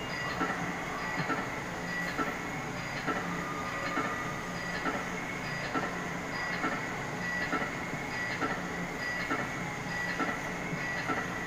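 Coin-operated jeep kiddie ride running: a steady electronic hum with a short pattern of tones and ticks repeating about once a second.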